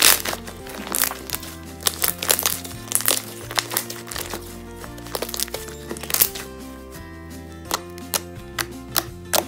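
Background music with a shifting bass line, over a run of sharp crackling clicks from glue-free fluffy slime being squeezed and stretched by hand.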